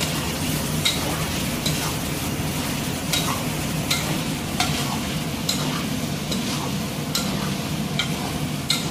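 Chicken and tomato masala sizzling in a metal pot while a metal spatula stirs it, scraping and clinking against the pot about once a second.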